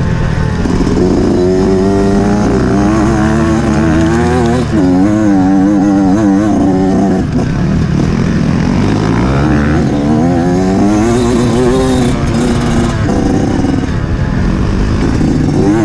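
Off-road motorcycle engine running hard and continuously, its revs rising and falling again and again as the throttle is opened and closed.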